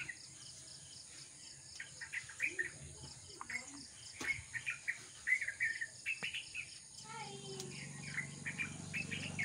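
Small birds chirping repeatedly in quick clusters of short high notes, with a few light knocks and clicks.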